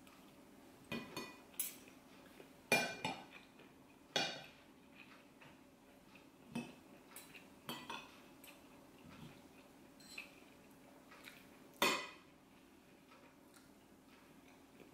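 Metal spoon and fork clinking and scraping against ceramic plates while eating: scattered separate clinks a second or two apart, the loudest about three seconds in and again about twelve seconds in.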